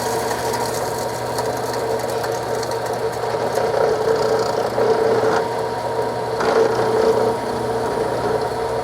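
Drill press running steadily with a hum and a whine, its small bit drilling slowly into the steel of a revolver frame, a little at a time.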